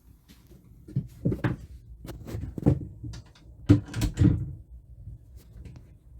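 A run of sharp knocks and clunks, about eight of them, from hands working an old radio loose from its fitting in a wooden cupboard. The loudest comes about two thirds of the way through, and it goes quieter near the end.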